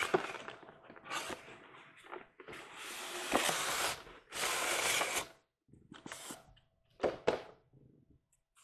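Hands opening a cardboard model-train box and sliding out its styrofoam packing tray: scraping and rubbing noises, the two longest in the middle, then a few shorter rustles and a sharp knock.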